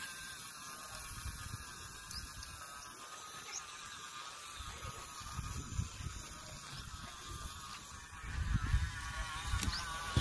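Small electric DC motor of a homemade toy tractor whining steadily while it pulls a trolley heavily loaded with sticks, its pitch wavering slightly under the load. A low rumble rises and falls, loudest about eight and a half seconds in.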